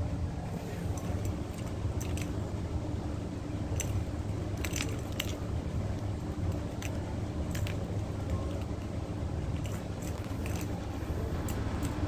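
Irregular light plastic clicks and knocks as a kitten bats at a plastic ball-track cat toy and the ball rattles in its track, with a small flurry of clicks about four to five seconds in, over a steady low hum.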